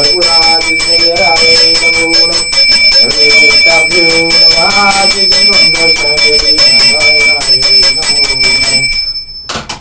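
Brass puja hand bell rung continuously in quick, even strokes during aarti, its high ringing tones holding steady, over a man's voice chanting a Sanskrit hymn. The bell stops abruptly shortly before the end.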